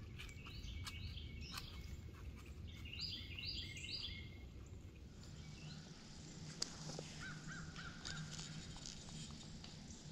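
A bird gives short harsh calls in two runs of about three during the first four seconds, over scattered crackles of a deer's hooves stepping through dry leaves. A softer call of four quick notes follows later.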